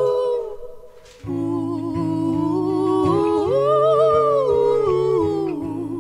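A man's and a woman's voice singing a slow, wordless melody in close harmony, each phrase swelling and then falling away. The singing drops out briefly about a second in, then comes back.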